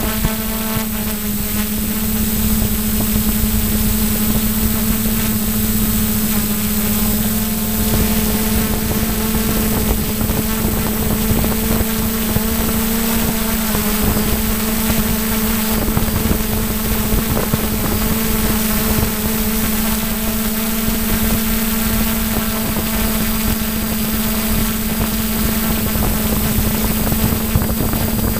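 Model airplane's motor and propeller running at a steady cruise throttle, heard from a camera on board: a constant drone at one pitch with wind rushing over the microphone.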